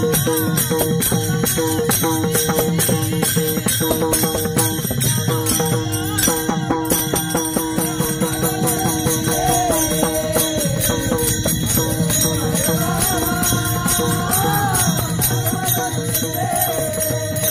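Marathi devotional kirtan music: a fast, steady metallic jingling beat over held drone notes, with a voice singing a melody from about halfway in.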